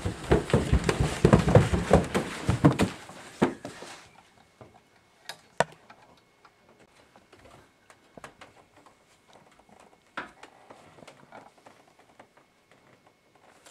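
A person's body bumping and sliding down carpeted stairs: a rapid run of thumps for about three seconds, then a few scattered knocks and faint rustling.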